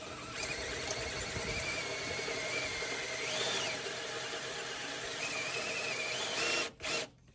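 DeWalt cordless drill driving a step bit through metal to enlarge a hole: the motor runs steadily under load while the bit squeals against the metal, the squeal rising in pitch briefly about three seconds in. The drill stops abruptly near the end.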